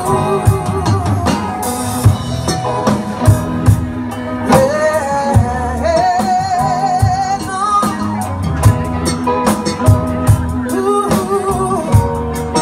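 Live band playing a song: sung vocals with vibrato over drum kit, bass and electric guitar, with the drum hits keeping a steady beat.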